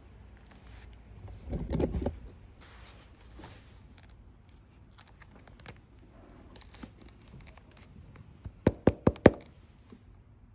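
Knocking from hand work on a leather boot at a repair bench: a dull thump with handling rustle about two seconds in, then a quick run of about five sharp knocks near the end.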